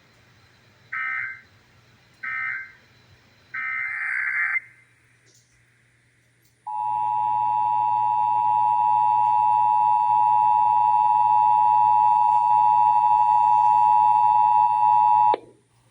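Emergency Alert System test tones: three short bursts of screeching digital header data about a second apart, then, after a brief pause, the two-tone attention signal (853 and 960 Hz together), held steady for about nine seconds and cut off abruptly. This is the opening of a Required Monthly Test alert.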